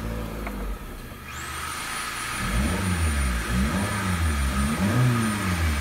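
Renault Scenic's K4J 1.4-litre 16-valve petrol four-cylinder engine, heard from inside the cabin, idling just after starting and then revved in a series of quick blips from about two and a half seconds in, the revs rising and falling several times. The revs pick up well.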